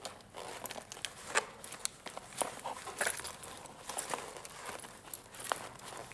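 Irregular crackles and sharp snaps of footsteps moving through dry leaf litter and twigs on a forest floor.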